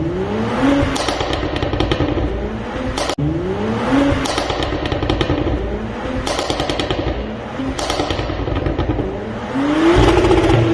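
2019 Porsche Cayenne 3.0T's turbocharged V6, Stage 1 tuned, blipped up in about five short revs, each followed by a rapid string of pops and crackles from the exhaust as the revs drop.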